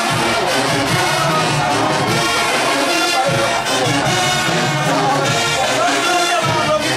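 University marching band playing a brass-heavy tune, with sousaphones, trumpets and trombones sounding together.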